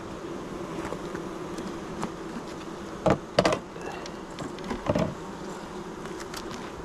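Honeybees buzzing steadily around an opened hive. Short sharp knocks stand out about three seconds in and again about five seconds in.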